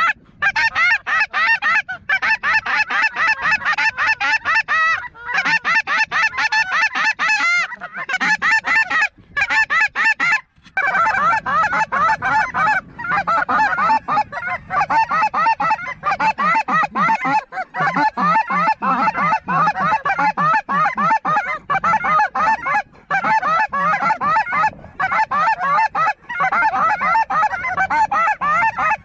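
A large flock of snow geese calling overhead: a dense, continuous chorus of rapid, overlapping high-pitched honks.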